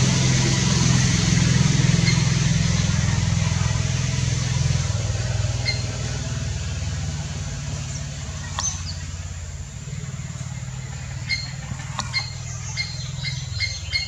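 A motor vehicle's engine drone, low and steady, slowly fading away. In the last few seconds a small bird gives a run of short, high chirps.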